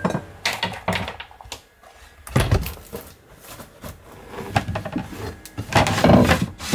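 Knocks and clatters of unpacking in a small cabin: glass bottles set into a shelf holder, then a wooden cupboard door opened and shut, the loudest clatters about two and a half seconds in and near the end.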